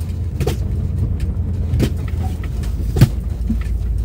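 Thor Majestic 19G motorhome's engine running with a steady low rumble as the rig moves slowly to get level. A few sharp knocks cut through, the loudest about three seconds in.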